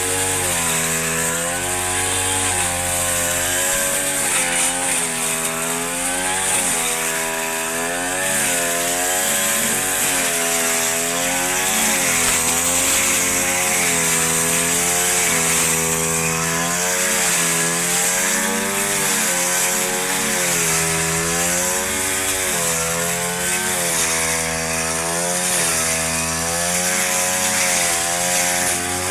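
Two-stroke lawn mower engine running at high speed while cutting thick grass, its pitch sagging and picking back up every second or two as the load changes.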